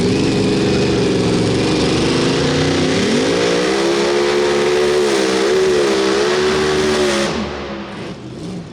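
Pulling vehicle's engine running hard at full throttle under load. Its pitch climbs about three seconds in, wavers, then drops away sharply near the end as the throttle comes off.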